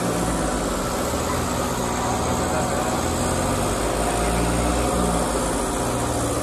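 Two tractor diesel engines, a Kubota and a New Holland 5501, running steadily while hitched back to back for a tug-of-war pull. A crowd's voices sound behind the engines.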